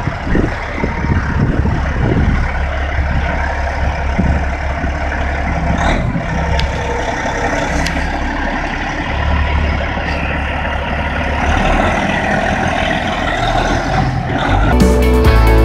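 Diesel semi-truck engine, a Detroit Diesel under DDEC IV electronic control, running at low speed with a steady low drone whose note steps up and down. Music comes in near the end.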